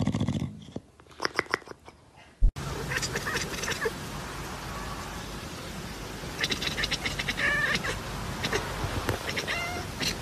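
Domestic animal calls. A short pitched cry comes at the start, followed by a few sharp calls. After an abrupt change, scattered clicks and short high chirping calls sound over a steady hiss.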